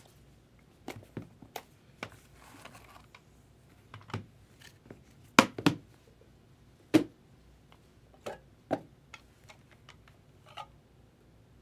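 Scattered sharp taps and clicks as a cardboard trading-card box is handled and its lid worked open, the loudest a little after five seconds in and again at seven. A stack of cards is riffled near the end.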